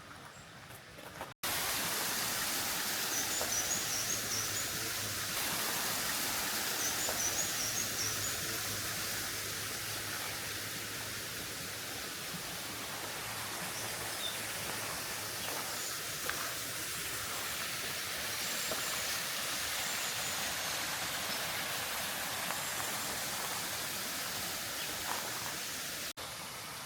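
Steady rushing water, an even hiss that starts abruptly about a second in and stops abruptly near the end. A bird gives two short high chirping phrases early in the hiss.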